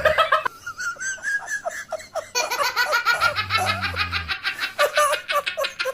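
People laughing hard in quick, high-pitched bursts of giggling, several bursts a second for much of the time.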